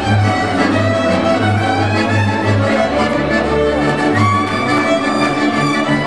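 A Transylvanian village string band playing a dance tune: several fiddles bow the melody together over contra chords and a double bass pulsing about twice a second.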